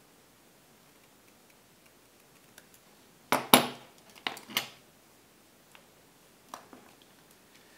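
Metal pliers set down on the work board, a short clatter of sharp clinks about three and a half seconds in, with a few fainter ticks of handling before and after.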